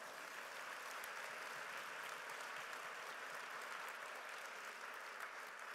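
Audience applauding steadily, the clapping of many hands.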